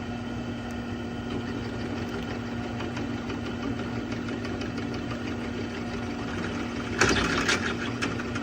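Old belt-driven drill press running steadily at 280 RPM, its motor and belts giving a constant hum. About seven seconds in, a louder, rapid rasping chatter sets in for about a second as the cutter works the bore in the metal.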